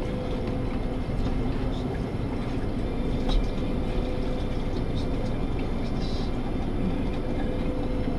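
Steady mechanical rumble with a constant hum and a few faint clicks.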